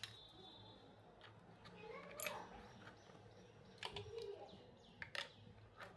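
Several light plastic clicks and taps, spaced about a second apart, as the stick-lids of an ice-pop mould are pressed into place.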